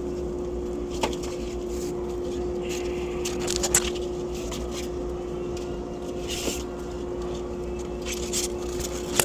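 Sanding belts being rummaged through under a workbench: intermittent rustling with a few sharp clicks, the loudest about three and a half seconds in, over a steady machine hum with one constant tone.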